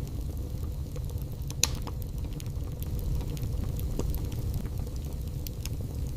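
Wood fire burning in a fireplace: a steady low roar of the flames with scattered sharp crackles, and one louder pop about a second and a half in.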